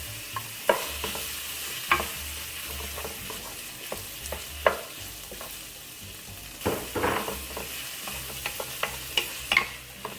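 Cooked pork with garlic, onions and ginger sizzling in hot oil in a pan while it is stirred, the utensil scraping and knocking against the pan at irregular moments, with more frequent knocks in the last few seconds.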